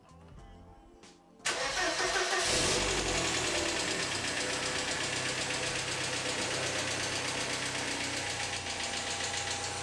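Car engine started about a second and a half in, catching and then settling into a steady idle. This is its first start after sitting for a long time and after a fresh oil change, with the oil pressure taking a few seconds to build.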